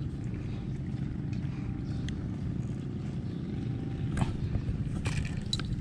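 A steady, low-pitched engine drone, with a few faint clicks near the end.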